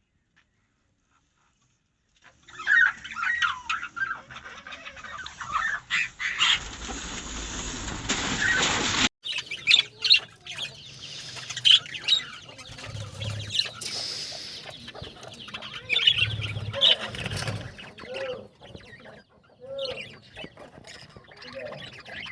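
Budgerigars chirping and chattering in a cage, starting after about two seconds of silence. Sharp clicks and other bird calls are mixed in, with a hissing stretch that ends abruptly about nine seconds in.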